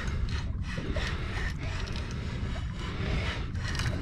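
Fishing reel being cranked fast against a hooked shark: a steady run of quick mechanical ticks, over low wind rumble on the microphone.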